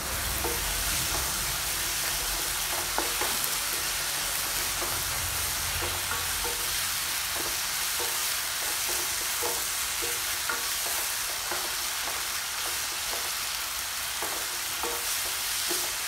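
Shallots, green chilli-ginger-garlic paste and curry leaves sizzling in hot oil while being stirred in the pan, the spoon tapping and scraping at irregular short intervals. This is the stage of frying the masala base until it browns, before the spice powders go in.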